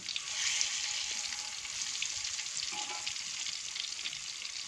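Whole bananas deep-frying in hot oil in a wok: a steady crackling sizzle, with a spatula stirring and turning them in the oil.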